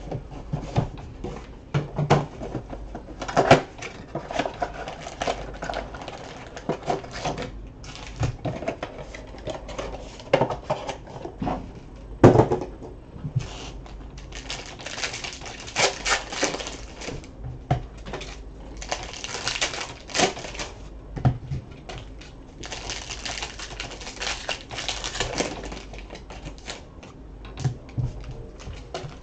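A Panini Prizm basketball card mega box being opened and its packs and cards handled: a quick run of clicks and taps as cards are flicked and squared into stacks, with bursts of crinkling plastic pack wrappers.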